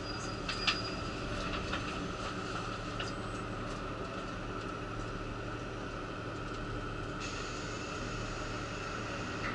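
Steady hum inside a KiHa 85 diesel railcar standing at the platform, its engine idling. There is a sharp click just under a second in, and a hiss joins about seven seconds in.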